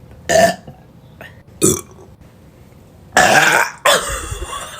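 A person burping out loud: two short burps in the first two seconds, then a long, loud belch about three seconds in.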